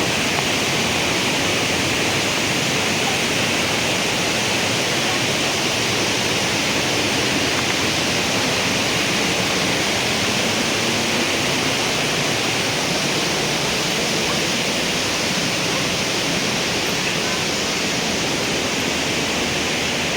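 Waterfall rushing: a steady, even hiss of falling water with no change through the stretch.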